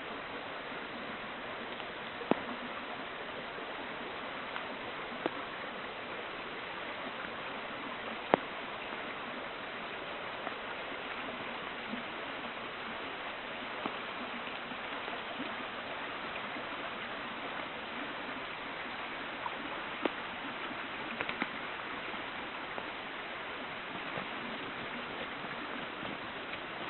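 River water flowing steadily, with a handful of sharp clicks; the loudest clicks come about two and eight seconds in.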